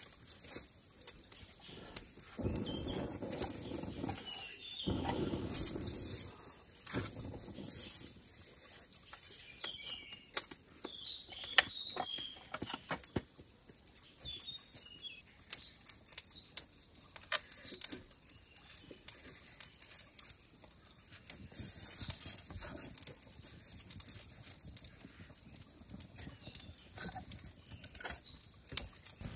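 Dense, irregular pattering ticks and taps, with a few faint high bird chirps in the first half and a couple of dull low rumbles a few seconds in.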